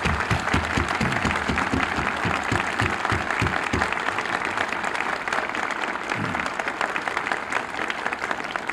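An audience applauding steadily in response to a call for applause, easing slightly toward the end.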